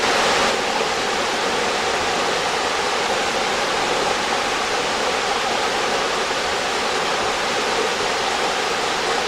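Steady rushing of creek water over rocks, an even hiss-like flow with no breaks.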